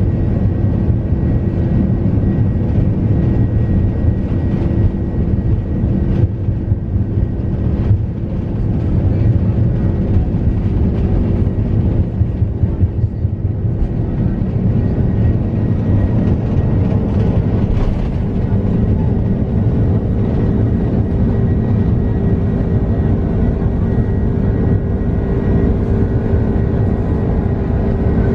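Airbus A330-200's twin jet engines at takeoff thrust, heard from inside the cabin: a loud, steady roar with a low rumble and a steady hum. Jolts from the wheels on the runway come through until the airliner lifts off a little past halfway, and the sound is smoother after that.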